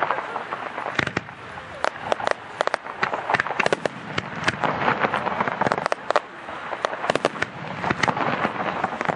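Fireworks display: an irregular, rapid run of sharp bangs from launching and bursting aerial shells, with crackling between them.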